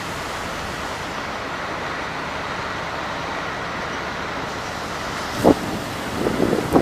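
Steady rushing noise of a vehicle moving through floodwater on a flooded highway, with a few short, irregular louder knocks or splashes starting about five and a half seconds in.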